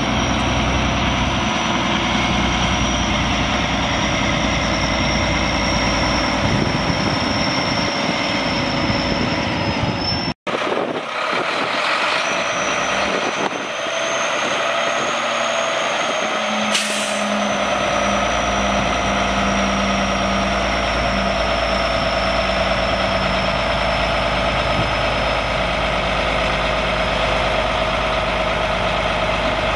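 Mack MP7 10.8-litre six-cylinder turbo diesel in a 2007 Mack CTP713 dump truck, running steadily with a thin high whistle above the engine note. The sound drops out for an instant about ten seconds in, and there is one brief sharp sound about seventeen seconds in.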